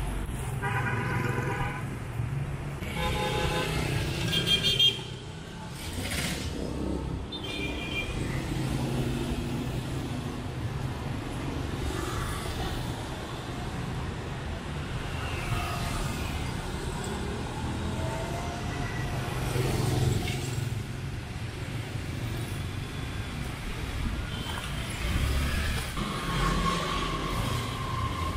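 Busy city street traffic: a steady hum of passing motorbike and car engines. Vehicle horns honk twice in the first five seconds and once more, briefly, about eight seconds in.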